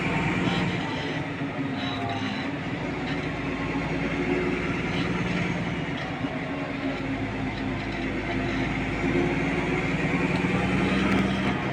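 Engine of a moving farm vehicle running steadily, with a continuous rattle and clatter from the vehicle as it drives along.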